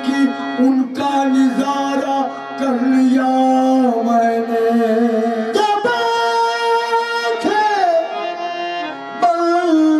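Singing with long, held notes that slide and bend, over instrumental accompaniment with a few sharp drum strokes.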